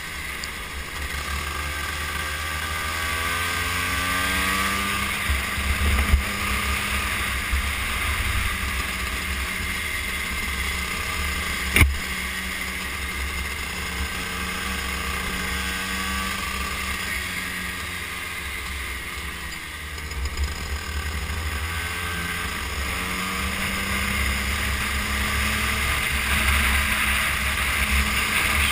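Go-kart engine heard from on board, its pitch rising as it accelerates and falling as it slows for corners, over wind buffeting on the microphone. A sharp knock about twelve seconds in.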